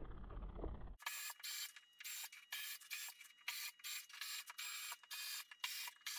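A low rumble for about a second. Then a cordless drill runs in a quick series of short bursts, about a dozen in five seconds, with a steady motor whine in each burst, as it drives screws into a plywood hull.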